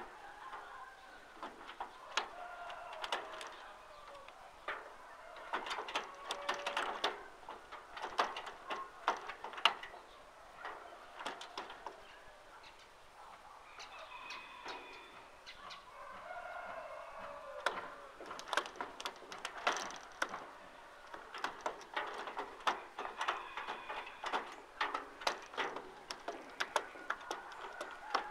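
Domestic fowl clucking and calling, amid frequent sharp clicks and taps.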